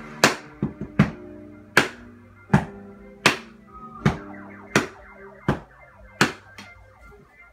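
Drumsticks striking a laundry basket and a pillow played as a makeshift drum kit, a loud hit about every three-quarters of a second with lighter hits in between, in time with a song playing in the background.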